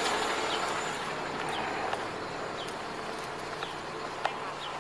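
A small bird chirping, short high falling notes about once a second, over steady outdoor street noise, with a couple of faint clicks.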